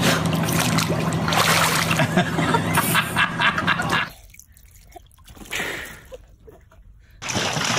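Pool water splashing and sloshing for about four seconds, with a steady low hum beneath it. Then it goes much quieter, with only faint small water sounds, until a loud rush of water noise starts near the end.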